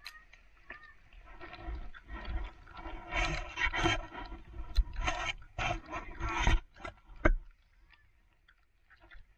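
Footsteps crunching and scraping on packed snow, about two a second, loudest in the middle and then dying away.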